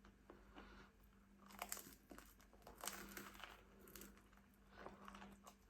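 Faint close-up chewing of a garlic dough ball dipped in garlic sauce: soft, wet mouth clicks and crackles in several small clusters.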